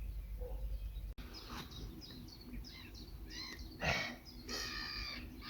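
Birds chirping and singing in short repeated phrases, with a low rumble for about the first second.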